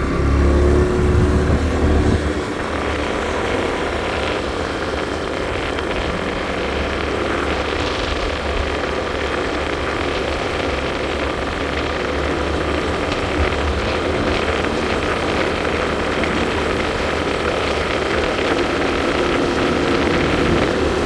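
Honda motor scooter engine running at a steady cruise, mixed with wind and road noise from riding. A heavier low rumble comes in the first two seconds, then it settles to a steady drone.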